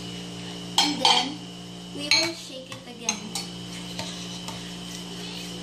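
A metal spoon clinking and scraping against an opened tin can and a ceramic bowl as condensed milk is scraped out and stirred in. The loudest knocks and scrapes come in the first three and a half seconds, with a lighter one about four seconds in, over a steady hum.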